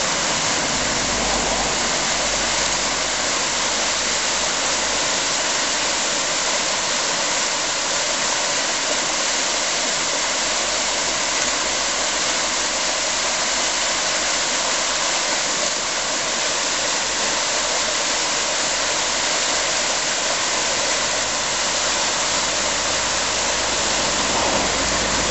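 Whitewater rushing over a rapid in a small river: a steady, even noise of churning water.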